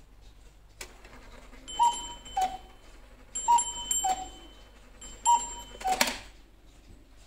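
Citizen cuckoo clock striking three o'clock: a click as the mechanism trips, then three falling two-note cuckoo calls from its bellows, each with a small bell ringing.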